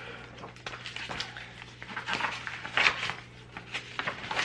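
Paper rustling as the pages of a picture book are handled and turned, in several short rustles, the loudest about three seconds in, over a low steady hum.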